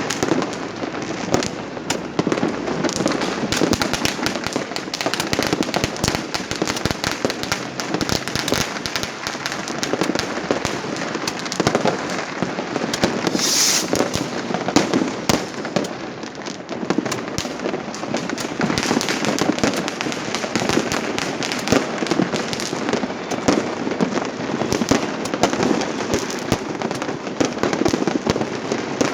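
Many fireworks and firecrackers going off at once: a dense, unbroken crackling and popping, with a brief high hiss about halfway through.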